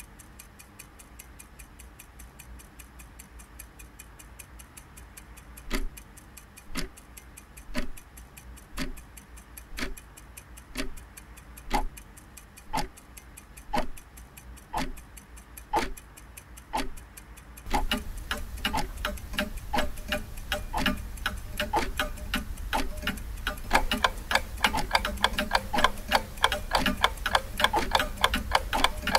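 Clock ticking: faint quick ticks at first, then a louder tick about once a second from about six seconds in. Near eighteen seconds it grows louder and denser, with many ticks overlapping.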